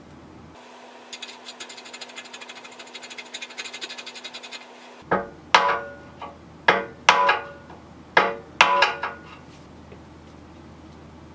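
A hammer striking a long metal rod set in a motorcycle frame's steering head: about seven sharp metal blows, each with a brief ring, coming in pairs between about five and nine seconds in. Before them comes a few seconds of rapid ticking that grows louder.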